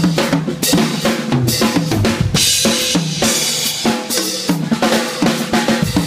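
Drum kit solo: fast strokes moving around the toms and snare, with bass drum hits and cymbal crashes ringing over them.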